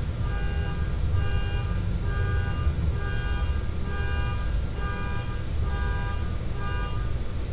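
A car alarm going off outside, the horn honking over and over in an even rhythm, about one honk a second.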